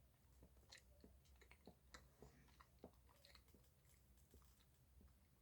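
Faint chewing of a soft chocolate cake roll: quiet, irregular mouth clicks and smacks over a low steady room hum.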